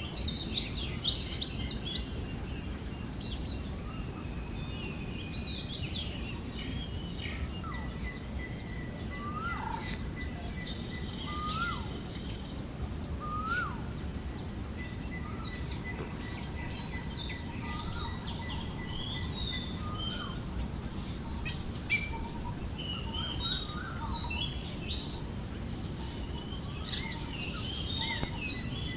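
Forest ambience: many small birds chirping over a steady, pulsing high insect trill and a low rumble of breeze. About a third of the way in, a lower bird call rising in pitch repeats four times, about two seconds apart.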